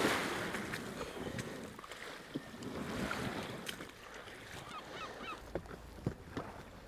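An Oru folding kayak launched off the beach into shallow water and paddled: a loud wash of water at the start, then lighter splashing and dripping from the paddle strokes. A few short bird chirps about five seconds in.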